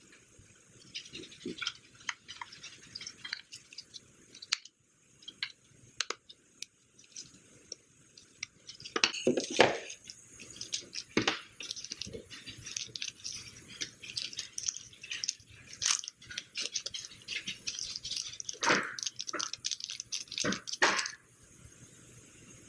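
Hands handling small drone parts with scattered clicks and taps, then about a third of the way in, a small plastic packet crinkling and rustling continuously. The crinkling stops suddenly near the end.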